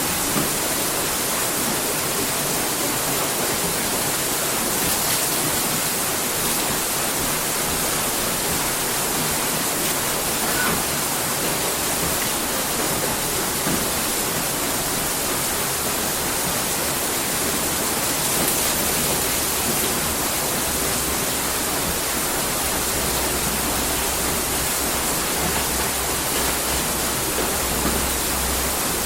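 Water mill wheel turning, the water pouring and splashing off it as a steady rush. A low steady rumble joins in about two thirds of the way through.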